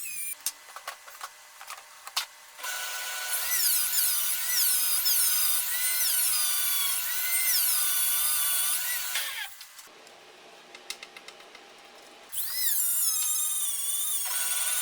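A handheld power tool abrading the metal of a car exhaust, giving a shrill, wavering screech. It runs for about seven seconds, stops, and starts again near the end. Small clicks and taps fill the quieter gaps before and between.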